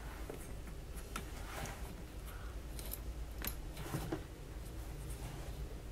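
Scattered light clicks and scrapes of a magnifier lamp's arm and clamp being handled as the clamp's thumb screw is tightened by hand.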